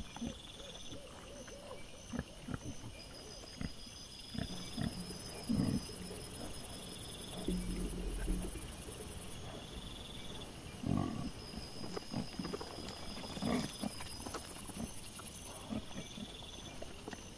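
Wild boar sow and piglets grunting and snuffling in short scattered bursts as they forage, sped up fourfold, over a steady background of night insects chirping in repeated pulses.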